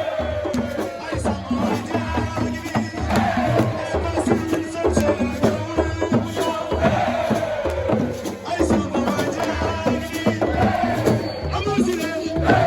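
Percussion-driven music with a steady drum beat and a falling melodic phrase that comes back every three to four seconds.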